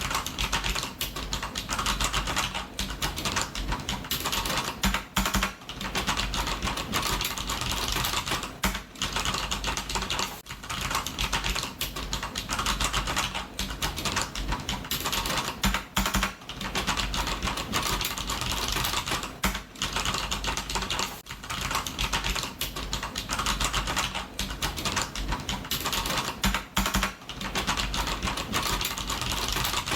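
Computer keyboard being typed on quickly, a dense run of key clicks broken by brief pauses every few seconds.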